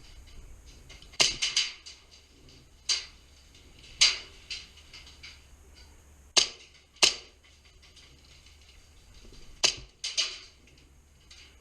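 Airsoft gunfire: sharp, short pops at irregular intervals, some single and some in quick clusters of two or three.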